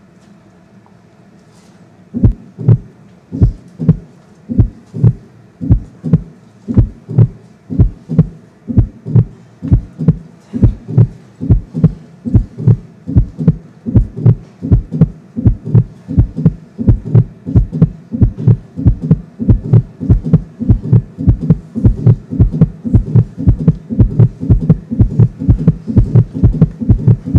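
A low, heavy thumping pulse like an amplified heartbeat begins about two seconds in and keeps a steady rhythm. It gradually speeds up, from about one and a half beats a second to nearly three.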